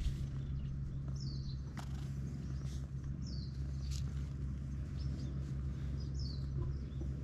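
A bird repeating a short, high, falling chirp every second or two over a steady low hum, with a few faint clicks.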